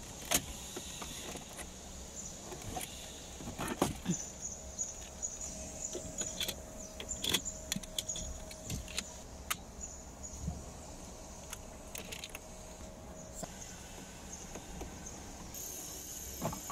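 Plastic dashboard trim of a Chevrolet Cruze being pried off around the factory radio with a plastic pry tool: scattered clicks and snaps as the clips let go, and plastic knocking and rattling as the panel and radio are handled.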